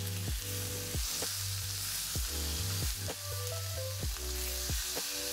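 Thick bone-in pork chops sizzling as they sear in a very hot 12-inch cast iron skillet, a steady hiss, while they are turned over with a fork. Background music with a steady beat plays louder over it.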